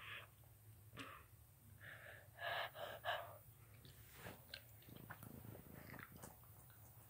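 A girl's short breathy huffs and gasps, muffled by a blanket held over her mouth, the loudest a quick cluster of them about halfway through. Soft fabric rustling follows.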